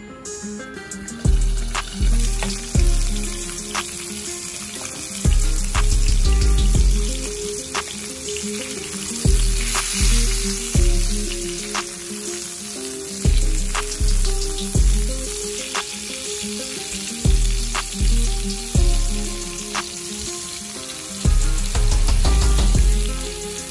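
Salmon fillets sizzling in oil in a nonstick frying pan, the sizzle swelling for a moment about ten seconds in. Background music with a deep bass note about every second and a half plays louder over it.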